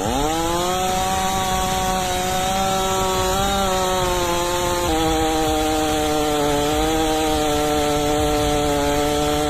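Holzforma G888's 122 cc two-stroke chainsaw engine revving up quickly and then running steadily at high revs, its pitch dipping slightly about halfway through.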